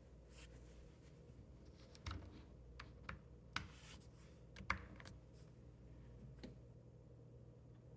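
About half a dozen short, faint clicks and taps over about three seconds, starting about two seconds in, against quiet room tone.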